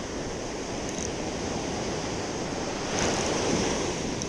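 Sea surf washing against rocks, with a little wind on the microphone; a wave comes in louder about three seconds in.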